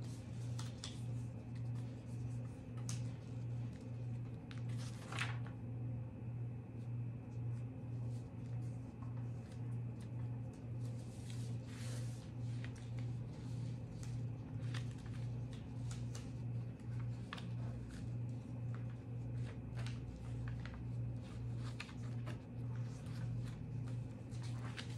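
Sheets of paper being folded and creased by hand: scattered crisp rustles and light taps, the sharpest about five seconds in. Under them runs a steady low electrical hum.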